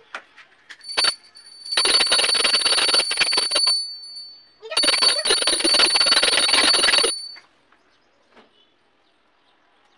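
A bell rung rapidly in two spells of about two seconds each, a clear high ring sounding through the rattle of the strokes. The ring hangs on through the short break between the spells.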